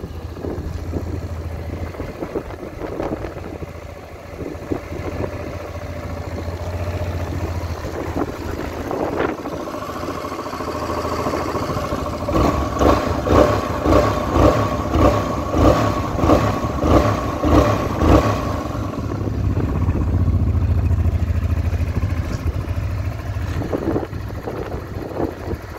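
Honda XL700V Transalp's 680 cc V-twin engine idling steadily. About halfway through, the throttle is blipped about ten times in a quick, even rhythm, and then the engine settles back to idle.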